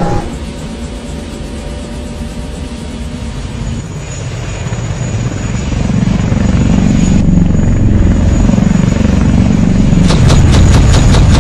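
Helicopter-like rotor noise: a low rumble that swells louder about halfway through. From about ten seconds in it becomes a fast, even chopping of rotor blades.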